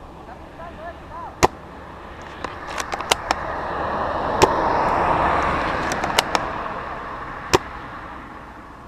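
Airsoft gun shots: single sharp cracks spaced a second or more apart, with a quick cluster of cracks about three seconds in. Under them a broad rush of noise swells up through the middle and fades away.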